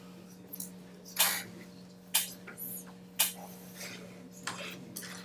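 A few faint, short clatters and rustles, roughly one a second, over a steady low hum.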